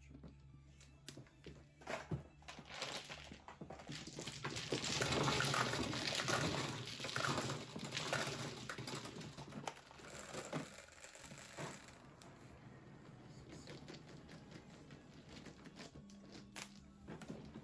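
Plastic mahjong tiles clattering as they are pushed across the felt and swept down into an automatic mahjong table's central opening, dense and loudest through the middle, with scattered single clicks before it. Afterwards, quieter, with a steady low hum while the table shuffles and raises the new walls.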